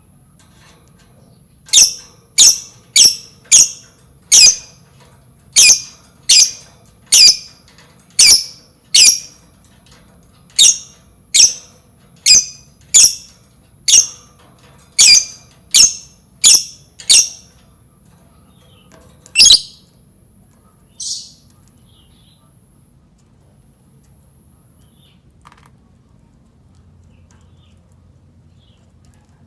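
Lovebird giving a run of about twenty loud, shrill single calls, roughly one every 0.7 seconds, then one more call and a fainter one after short pauses.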